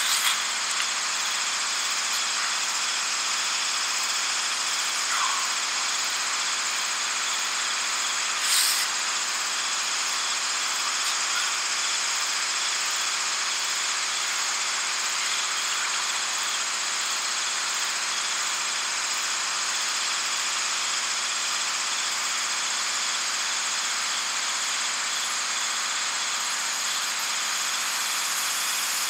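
Olive oil sizzling steadily in a cast-iron skillet of ajillo simmering over a campfire grill, with one short click about a third of the way in.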